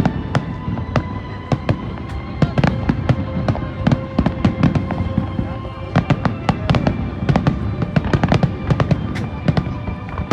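Aerial fireworks bursting in a dense barrage: rapid, overlapping bangs and crackles, many a second, without a break.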